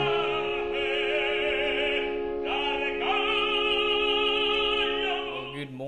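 Operatic singing over sustained accompaniment: a voice with vibrato holding long notes, with new notes entering about halfway through and the music fading just before the end.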